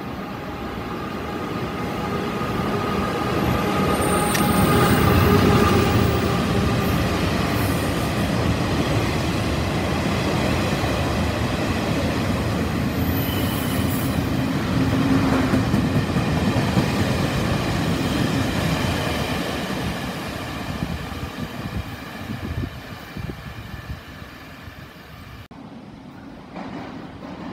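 Taiwan Railways passenger train running through an underground station without stopping. The rumble of wheels and carriages builds over the first few seconds and stays loud for about fifteen seconds, with thin high steady tones above it, then fades. Near the end it cuts to a quieter rumble.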